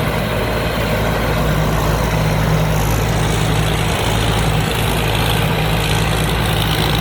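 Combine harvester's Hino J08C six-cylinder diesel engine running steadily under load while harvesting rice, a continuous loud drone with the threshing machinery.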